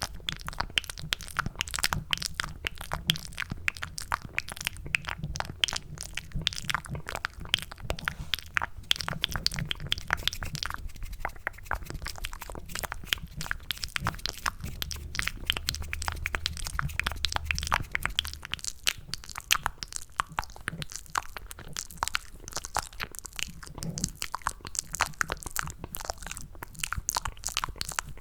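ASMR mouth sounds made close to the microphone, cupped by the hands: a dense run of wet, sticky clicks and smacks meant to sound like chewing mac and cheese.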